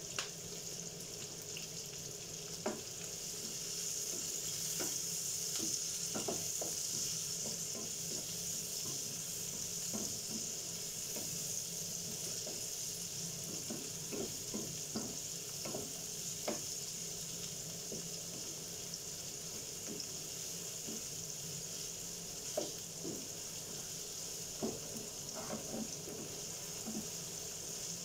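Sliced red onions sizzling as they sauté in a nonstick frying pan over a gas flame, a steady high hiss, with scattered scrapes and taps of a wooden spatula stirring them against the pan.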